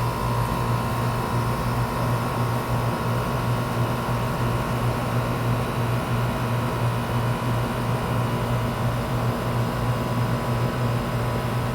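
Goodman central air conditioner condenser unit running: a steady low compressor hum under the even whir of the condenser fan.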